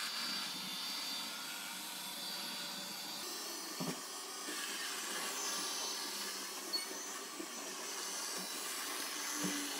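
Ultenic D10 robot vacuum-mop running steadily as it cleans a spill, an even motor whir with a high hiss, with a light knock about four seconds in and another near the end.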